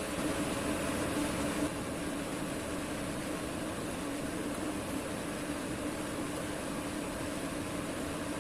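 A steady mechanical hum with a low tone and an even hiss, a little louder in the first second and a half.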